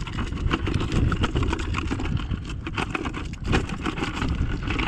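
Wild oysters clattering and scraping against each other and the chicken-wire as they are tipped out of a bucket into a wire trap, many quick knocks, over a low rumble of wind on the microphone.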